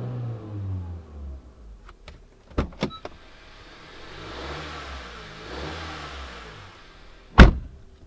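2016 Honda Civic's 1.5-litre turbocharged four-cylinder, fitted with a Mishimoto intake, blipped from idle: the revs fall back to idle in the first second, then a second, softer rise and fall follows in the middle, heard from inside the cabin. A couple of sharp clicks come about two and a half seconds in, and a loud thump near the end.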